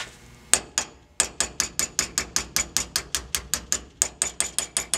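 Small hammer tapping a steel pin punch to drive the ejector pin out of a rifle bolt: a few spaced taps, then a steady run of light, quick taps, about five a second, each with a faint high metallic ring.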